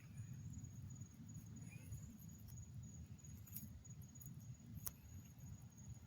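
Faint insects trilling at a steady high pitch at night over a low rumble, with two sharp clicks about three and a half and five seconds in.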